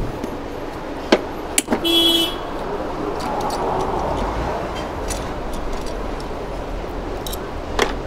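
A few sharp metallic clicks from a socket wrench on the extension as a Toyota Corolla's ignition coil bolt is undone. A short car horn toot sounds about two seconds in.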